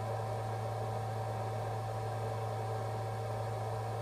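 Steady low machine hum with a thin, faint higher tone above it and a little hiss, unchanging throughout.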